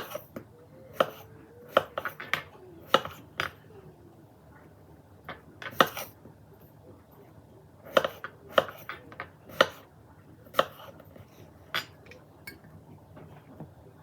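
Kitchen utensils and dishes clinking and knocking: about fifteen irregular sharp clicks, a few of them louder.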